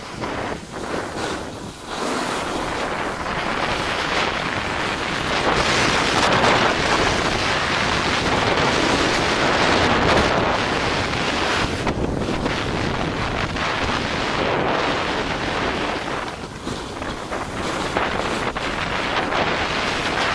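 Wind rushing over the microphone of a camera carried by a downhill skier, mixed with skis hissing and scraping over packed snow. The rush is patchy at first and grows to a steady, louder roar about two seconds in.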